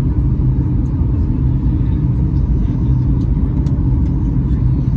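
Steady cabin noise inside a Boeing 737 MAX 8 on approach: a deep rumble of airflow and its CFM LEAP-1B engines, with a steady low hum.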